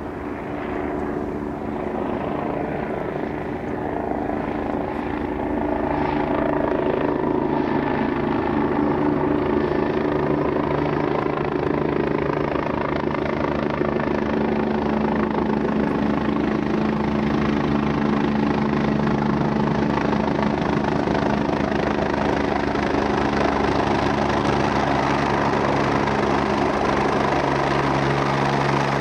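Agusta A109 twin-turbine helicopter running, its engines and rotor giving a steady sound with several held tones. It grows louder over the first few seconds, then holds level.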